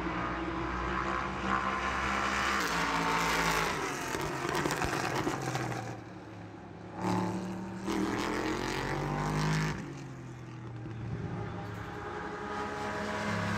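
Racing car engines at high revs, their pitch rising and falling as they accelerate and pass, loudest from about seven to ten seconds in.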